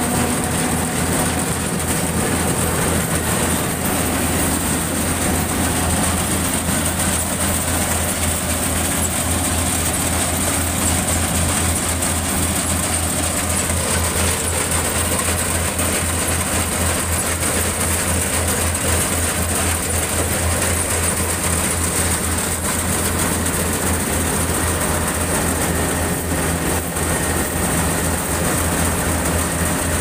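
Yanmar AW70V combine harvester running steadily while it harvests: its diesel engine and threshing machinery make a loud, even mechanical drone with a fast low throb.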